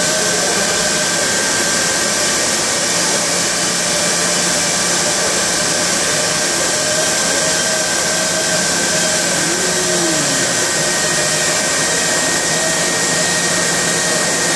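Mori Seiki NT2000 mill-turn machine spiral-milling grooves into a 4140 steel mandrel with an end mill. A steady hiss runs throughout, with two faint high whines and a lower tone that wavers up and down.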